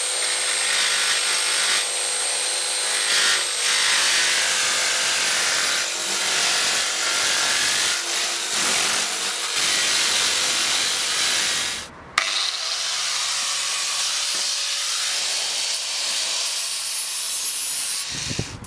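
A corded jigsaw cutting a circle out of a thin metal sheet, running steadily. About twelve seconds in it stops briefly, then a power tool spins up again and runs until shortly before the end.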